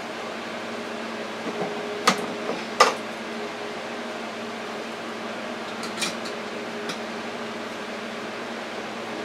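Door of a Power AirFryer oven being opened: two sharp clicks and clunks about two and three seconds in, then lighter metal clinks from the wire racks around six and seven seconds, over a steady low hum.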